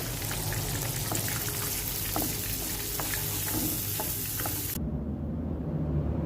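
Food sizzling in a hot frying pan, with scattered small pops and ticks. The sizzle cuts off suddenly about three quarters of the way through, leaving a low steady hum.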